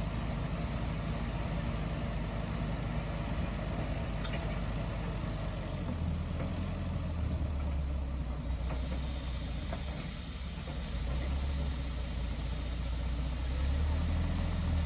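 Engine of a small internal-combustion industrial locomotive running at low speed as it slowly hauls a small steam locomotive. Its low rumble grows heavier about six seconds in.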